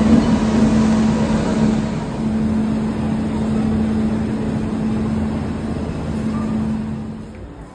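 Steady rumble of an Intercity Express passenger train with a low, even hum, fading near the end.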